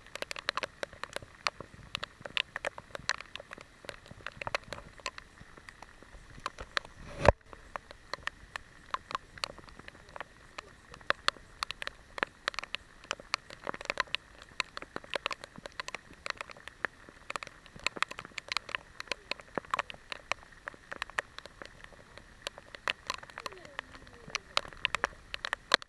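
Rain pattering on the boat and camera: a dense, irregular run of sharp ticks from drops striking close by, over a faint hiss. One louder knock about seven seconds in.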